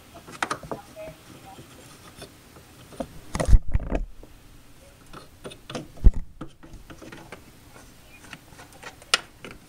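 Handling noise: scattered light clicks and knocks of small plastic toys and the camera being moved by hand, with two heavy low thumps about three and a half and six seconds in.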